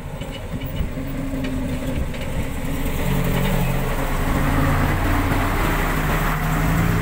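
Heavy dump truck's diesel engine running as it comes downhill and passes close by, growing louder about halfway through, with the rush of its tyres on the dirt road.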